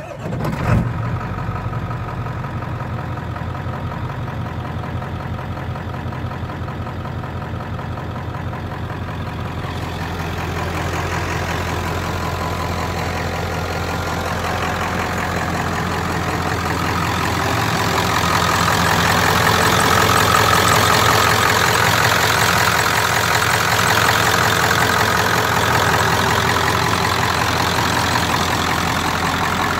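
Ford OBS pickup's 7.3-litre V8 diesel starting suddenly and settling into a steady idle. Heard first from inside the cab, then louder from outside near the open hood, from about ten seconds in.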